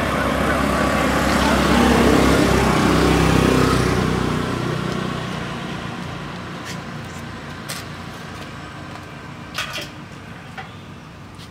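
A motor vehicle passing on the road, its engine and tyre noise growing louder to a peak a few seconds in, then fading away. A few faint clicks follow near the end.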